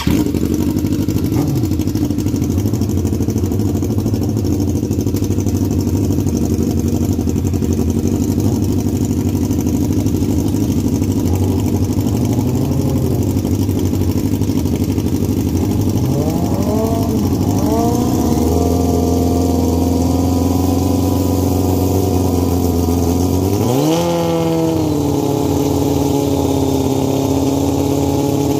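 Stretched drag-racing motorcycle engine idling loudly, blipped up and down a few times past the middle, then revved up sharply near the end and held at a higher steady pitch.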